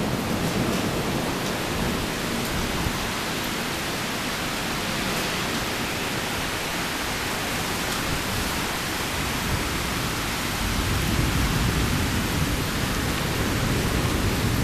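Heavy thunderstorm rain falling in a steady, dense hiss, with a low thunder rumble dying away at the start.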